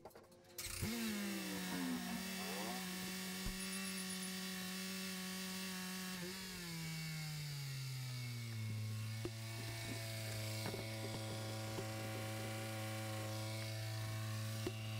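Mazda CX-5's four-cylinder engine starting up, briefly rising to a high fast idle, then about six seconds in dropping over a couple of seconds to a steady lower idle. It is run just after an oil change, freshly filled, to check for oil drips.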